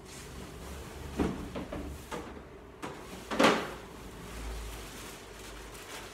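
Off-camera handling noises as someone rummages for a plastic carrier bag: two short knocks, the louder about three and a half seconds in, over low room noise.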